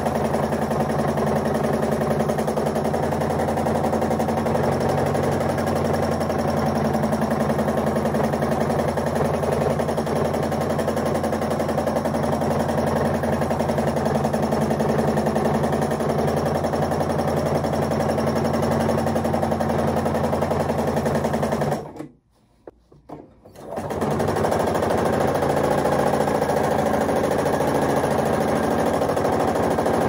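Domestic sewing machine running steadily at speed while free-motion quilting, with the stitch length set to zero. About three-quarters of the way through it stops abruptly for about two seconds, then starts up again.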